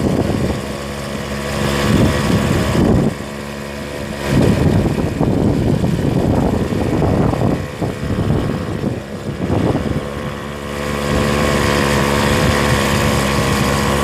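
An engine runs steadily throughout, with gusts of wind buffeting the microphone, heaviest in the first ten seconds or so.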